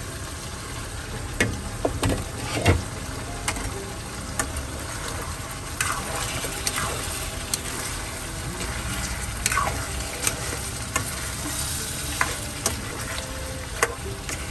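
Chicken pieces sizzling in their own juices in a nonstick frying pan while a silicone spatula stirs and scrapes them against the pan. A few sharper knocks stand out about one to three seconds in.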